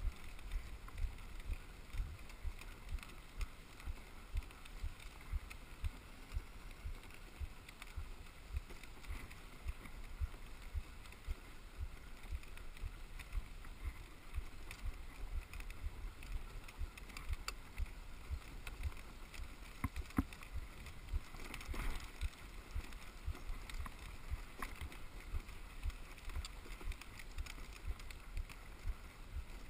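Dog sled running on a packed snow trail behind a team of sled dogs: a steady hiss of the runners over the snow, with an even patter of low thumps about two or three a second and a sharper knock about twenty seconds in.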